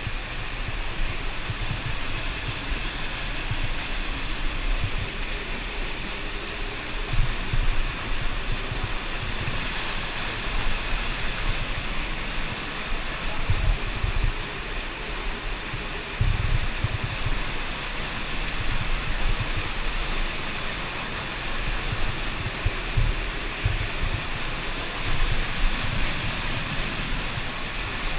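Cave river water rushing steadily, with irregular low thumps.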